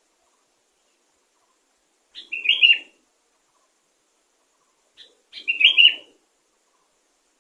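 Sooty-headed bulbul singing two short, identical song phrases about three seconds apart.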